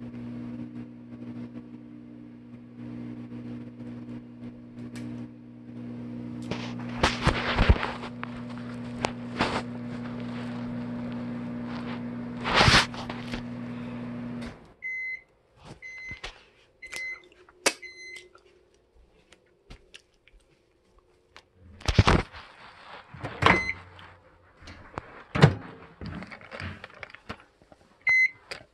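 Microwave oven running with a steady hum and a few loud knocks, then stopping about halfway through and giving four end-of-cycle beeps about a second apart. Thumps and clatter follow, and a single keypad beep sounds near the end.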